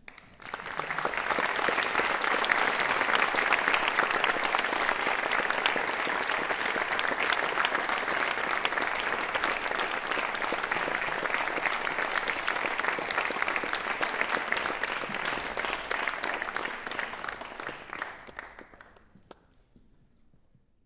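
Audience applauding in a concert hall, starting abruptly about half a second in, holding steady, then thinning out and dying away over the last few seconds.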